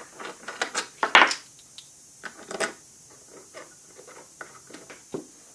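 Quarter-inch drill guide bushings being pulled out of and pushed into a metal doweling jig by hand: a run of small metallic clicks and clinks, the loudest about a second in and another near the middle.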